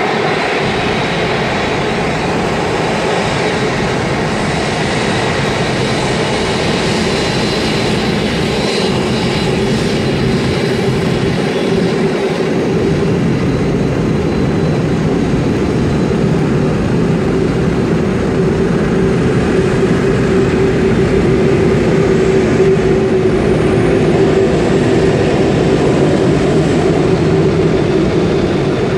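Airbus A380's four turbofan engines running at taxi power as the airliner rolls past: a steady jet drone with a high whine that fades about ten seconds in, growing slightly louder in the second half as the aircraft turns away.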